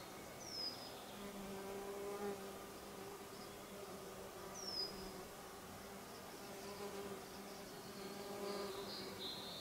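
A flying insect buzzing close by, a steady low hum that swells and fades as it moves about. Short high falling whistles sound twice, with a brief run of high notes near the end.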